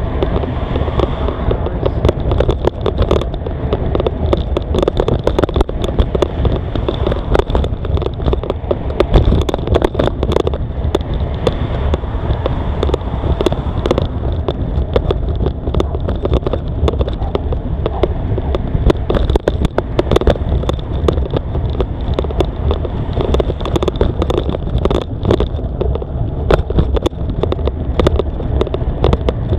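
Wind buffeting the microphone on a moving bicycle, a continuous low rumble with frequent sharp clicks and rattles throughout.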